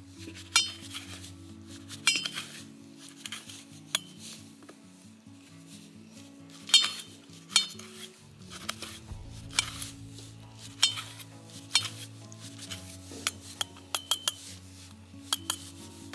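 Knife blade clicking against a stainless steel plate while cherry tomatoes are sliced, irregular sharp clinks about one every half second to a second, over soft background music.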